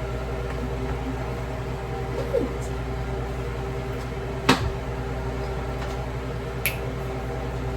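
Steady hum of a running kitchen appliance, with a sharp knock about halfway through and a lighter click near the end.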